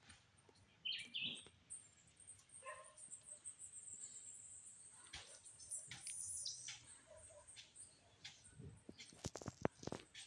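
Quiet outdoor ambience with a few short, faint bird chirps and several sharp clicks near the end.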